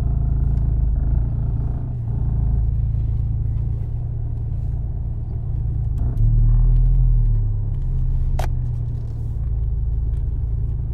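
Honda Civic Type R (FL5) running while being driven, a steady low rumble that swells louder for a second or so about six seconds in. A short sharp chirp sounds about eight seconds in.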